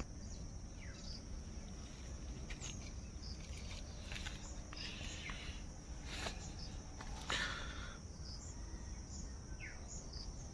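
Steady high-pitched chirring of insects, with a few brief rustles of leaves and plants in the middle of the stretch.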